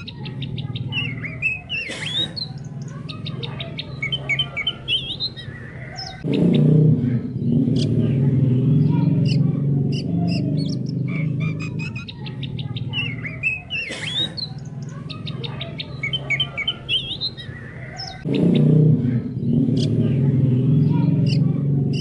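Oriental magpie-robin (kacer poci) song: varied whistled phrases, rapid trills and chirps, repeating about every twelve seconds as a loop over a dense low background that grows louder about six seconds in and again near the end.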